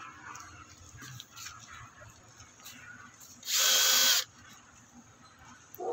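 A handheld power drill runs in one short burst of under a second, about three and a half seconds in, with a steady motor whine.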